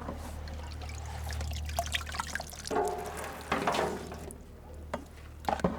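Fermented nettle compost tea sloshing and trickling as it is handled in its container, with scattered small splashes and drips.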